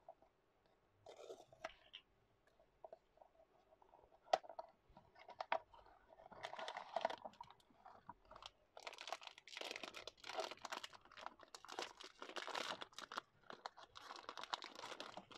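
Small cardboard box being handled and opened, with scattered clicks and scrapes and one sharp click about four seconds in. From about six seconds in, a foil blind-box bag crinkles and crackles steadily as it is crumpled and torn open.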